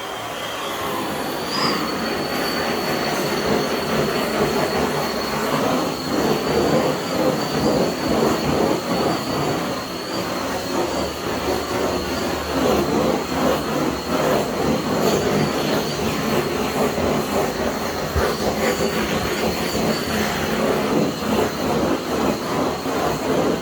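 A handheld power tool running continuously with a steady high whine over a rushing noise, its loudness wavering as it is moved about.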